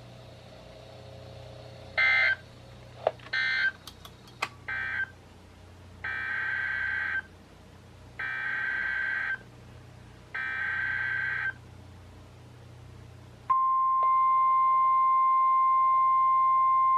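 NOAA Weather Radio (KHB36) alert signalling through weather radio receivers. First come three short SAME end-of-message data bursts that close the previous severe thunderstorm warning, with a couple of sharp clicks among them. Then three longer SAME header bursts, each about a second long and a second apart, encode the next warning. About thirteen seconds in, the steady, loud 1050 Hz warning alarm tone begins and continues.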